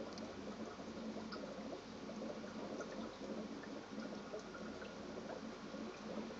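Aquarium water trickling and bubbling over a steady low hum, with scattered small pops and drips.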